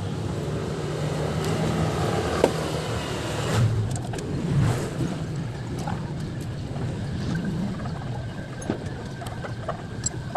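Hand tools clicking and knocking on metal as the engine sprocket cover of a Honda RS125 FI motorcycle is unbolted and taken off, over a steady low background rumble like distant traffic. One sharp click stands out about two and a half seconds in.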